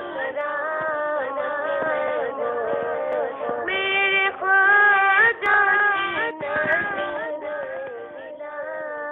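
A single voice singing an Urdu devotional song in praise of Ghaus-e-Azam, with long held notes that waver in pitch.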